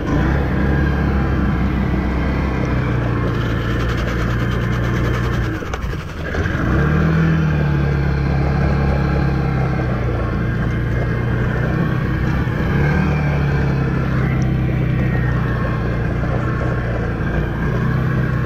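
Can-Am 6x6 ATV's V-twin engine running while the machine floats in a river, the throttle worked up and down: the revs sag briefly about six seconds in and then climb again, with smaller rises later on.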